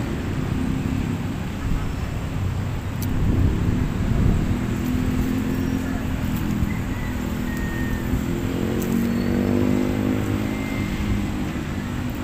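Road traffic going by, over a steady low rumble. About eight seconds in, a vehicle engine's note climbs and then holds for a few seconds.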